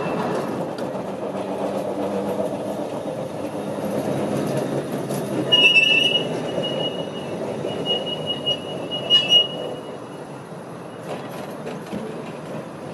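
Heritage electric tram running past on its rails, a steady rumble of wheels and running gear. About five seconds in a high wheel squeal sets in and lasts some four seconds as the tram rounds the curve, then the rumble fades away with a few clicks near the end.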